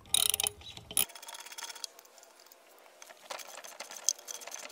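Ratchet wrench with a 9/16-inch socket clicking in runs while it unscrews the bolts holding the bracket onto a booster pump motor, with a few louder metal clacks in the first half second.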